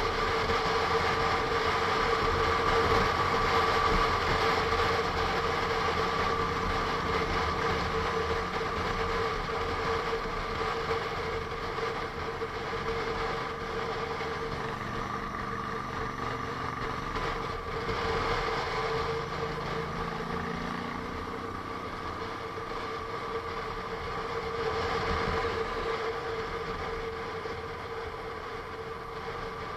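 Onboard sound of a Honda NC750S DCT motorcycle on the move: engine running under wind and road noise, with a steady high whine throughout.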